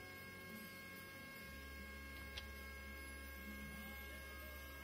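Faint steady electrical hum with thin high whining tones from powered electronics; a deeper hum joins about a second and a half in, and there is one small faint tick near the middle.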